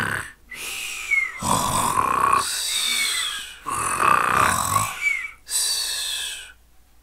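Cartoon-style snoring sound effect on a coursebook audio recording: rumbling snores alternating with whistling out-breaths, each about a second long.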